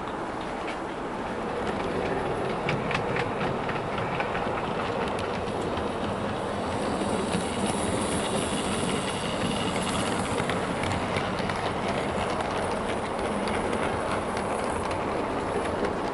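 Hornby Terrier OO gauge model locomotives running on model railway track with their coaches: a steady whirr of motor and wheels, with scattered clicks over the rail joints.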